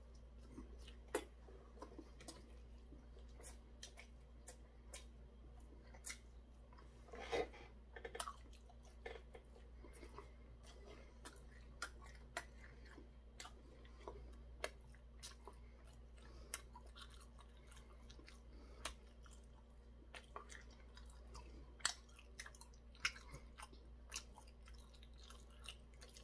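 A person chewing a mouthful of Korean fried squid (ojingeo twigim) with the mouth close to the microphone: faint, irregular crunches and wet mouth clicks, with a louder spell of crunching about seven seconds in.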